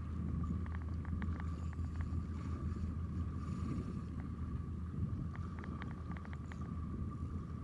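Spinning reel being cranked to retrieve a lure, heard right next to the rod: a steady low rumble of handling and wind, a thin steady whine, and quick clusters of small clicks.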